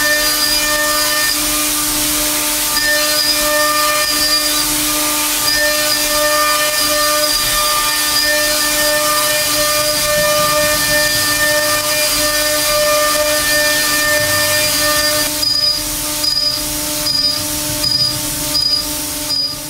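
Kennametal HARVI III six-flute solid-carbide end mill milling 1018 steel on a CNC machining centre at 15,000 rpm and a 1,000 in/min feed: a steady whine of several tones over a hiss. From about 15 seconds in, the cut stutters, breaking off and picking up again several times.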